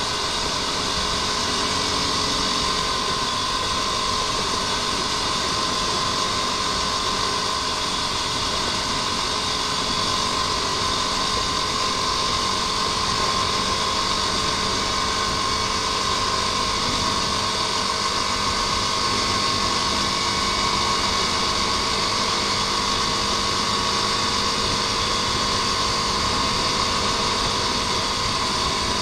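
Motorcycle cruising at a steady speed, its engine note held even under a heavy rush of wind on the handlebar-mounted microphone.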